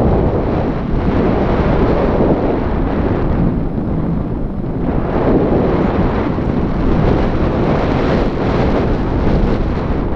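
Wind from a paraglider's flight buffeting the camera's microphone: a loud, low rushing that swells and eases every couple of seconds.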